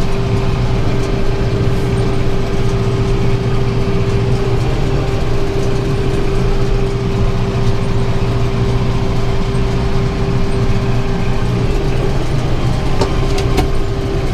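Farm tractor engine running steadily under load while it pulls and drives a round baler that is picking up hay and forming a bale, with a steady high whine over the engine.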